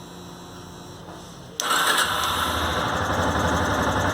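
Yamaha Fazer 250 single-cylinder engine starting up about a second and a half in, then running steadily. It runs without the engine noise it was brought in for.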